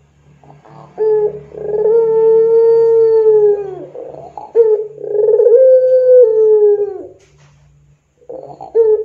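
Puter pelung, a long-voiced domestic ringneck dove, cooing in long drawn-out held notes. There are two coos of nearly three seconds each, each sliding down at the end, and a third begins near the end.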